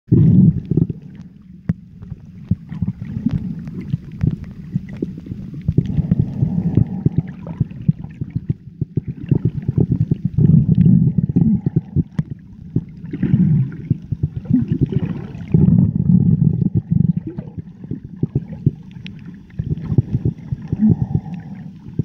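Muffled underwater noise picked up by a submerged phone: a low sloshing rumble of moving water that swells every few seconds, crackling with many small clicks.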